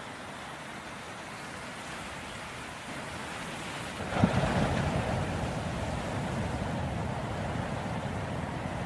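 Ocean surf: a steady wash of waves, then about four seconds in a wave crashes with a sudden low thud and louder rushing water carries on after it.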